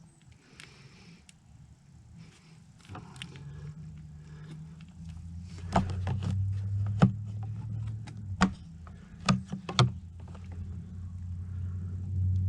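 A handful of sharp knocks and clicks from tools and parts being handled during engine reassembly, over a low droning hum that swells about three seconds in and stays.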